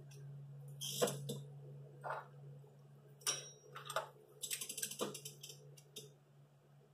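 Hand tools clicking and clinking against metal under the hood while a new glow plug is fitted, with a quick run of rapid, even clicks about four and a half seconds in. A steady low hum runs underneath.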